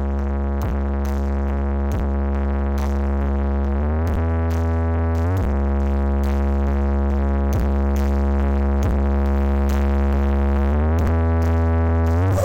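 Electronic music: held synthesizer chords over a steady bass note, with light regular percussive clicks and a few chord changes.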